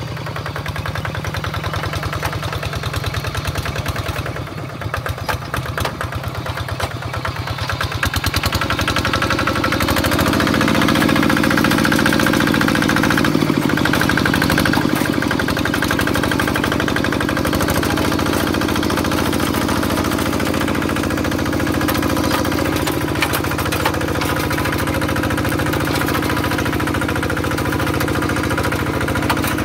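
Kubota single-cylinder diesel engine of a Quick G1000 two-wheel hand tractor running steadily while pulling a plough through the soil, louder from about ten seconds in.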